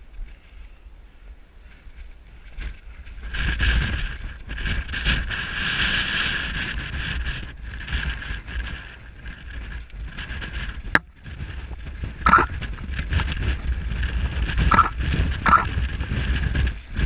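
Wind buffeting the camera microphone, a low rumble that grows stronger about three seconds in and stays gusty. A few short higher-pitched sounds come through in the second half.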